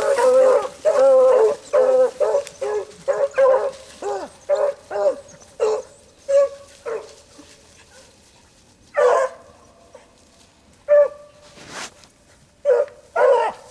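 Rabbit dogs giving voice on a rabbit's trail: a quick string of bawling barks for about the first five seconds, then thinning to scattered single barks.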